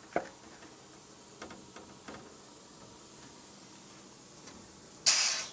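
A few faint clicks, then near the end a short, loud hiss of escaping gas lasting about half a second.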